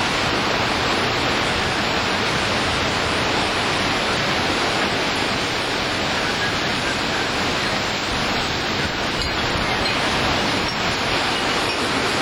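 Hurricane wind and driving rain: a dense, steady rush of noise that holds at one loud level without a break.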